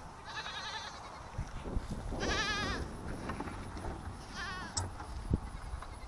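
A goat bleating three times, each call a wavering, quavering bleat; the middle one is the loudest. A few soft thumps come in between.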